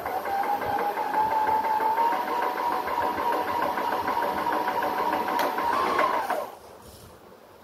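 Ultrabest Bheem airless paint sprayer's electric motor and piston pump running. Its whine rises in pitch over the first couple of seconds, then holds steady with a rapid, even pulse of pump strokes. About six seconds in it shuts off, the pitch dropping as it stops.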